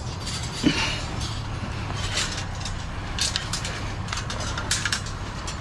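Metal fencing pieces clinking and knocking now and then as they are handled and loaded, over a steady low hum.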